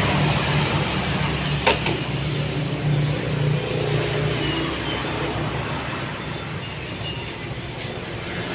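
Steady background hum and hiss, with two light clicks about two seconds in and near the end as plastic printer parts and a cable are handled.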